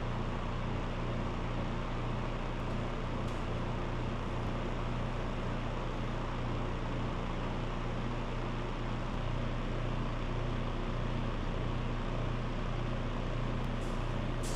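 Steady mechanical hum with an even rushing noise, the sound of a motor-driven fan running, with a few faint clicks.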